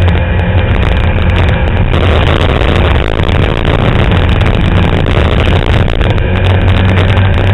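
Fiat 127 Abarth race car's four-cylinder engine running hard, heard loud from inside the cabin. Its steady low note eases about two seconds in under a rush of broader noise and comes back strong near the end.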